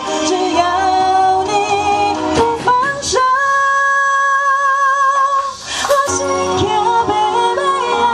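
Live music with a woman singing over accompaniment. About three seconds in she holds one long note with vibrato while the backing drops away, and the music comes back in fully about six seconds in.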